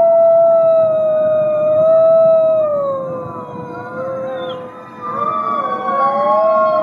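Gray wolves howling: one long, steady howl slowly falling in pitch, with other wolves howling over it. The main howl fades near five seconds, then several howls rise together in chorus.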